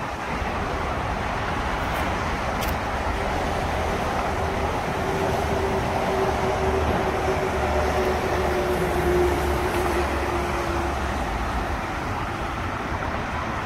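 Outdoor wind buffeting the microphone over a steady rumble of road traffic. A steady engine-like hum comes through for several seconds in the middle, dropping slightly in pitch before it fades.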